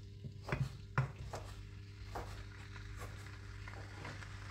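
Wooden spoon knocking and scraping against a nonstick frying pan as raw pork pieces are spread out in oil, a few short knocks in the first couple of seconds over a steady low hum. A faint sizzle of the oil starts to rise near the end.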